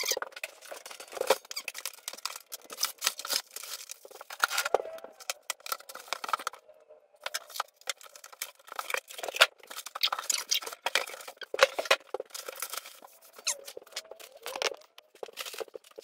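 Cardboard box and plastic packaging being opened and unpacked: rustling, tearing and squeaking in many short, sharp sounds, with a brief pause about six and a half seconds in.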